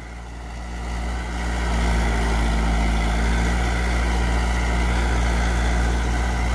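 1986–87 Mahindra B275 DI tractor's diesel engine running steadily under load, with the PTO driving a Shaktimaan 7-foot rotavator through the soil; the tractor has just been overhauled. The sound grows louder over the first two seconds, then holds steady.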